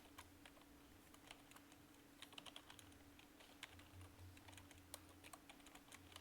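Faint typing on a computer keyboard: irregular, quick keystroke clicks over a steady low hum.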